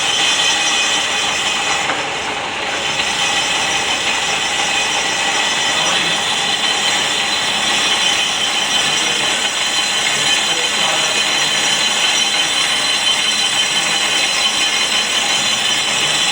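Brake disc rotor being resurfaced on a manual lathe: the cutting tool scrapes steadily across the spinning rotor face with a continuous high-pitched ringing squeal.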